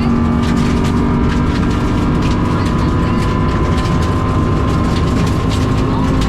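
Rally car heard from inside the cabin, its engine holding steady revs with a high whine from the dog-engagement gearbox and scattered sharp clicks. The engine is running with a bad misfire.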